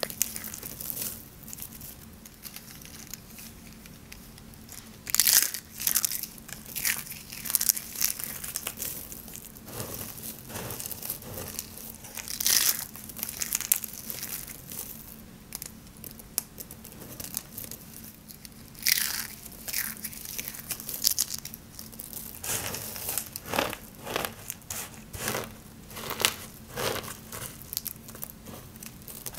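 Dry, hard soap curls being crushed in the hands and raked through with the fingers: crisp, irregular crunching and crackling that comes in clusters, with a few louder bursts.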